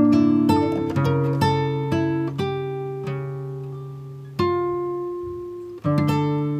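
Background music: plucked guitar notes and chords, each ringing out and fading before the next.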